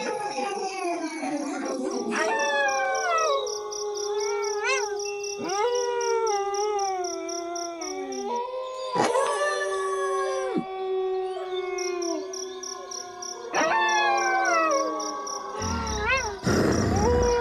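A pack of wolves howling in chorus: several long, overlapping howls that rise and fall in pitch, some held and slowly sliding down. Crickets chirp steadily behind them, and a short rush of rumbling noise comes near the end.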